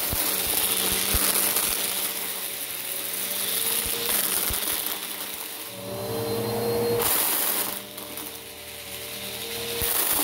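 Bissell Power Force Helix upright vacuum running over carpet, its motor noise swelling and dipping as it is pushed and pulled, with scattered sharp clicks of small plastic beads being sucked up.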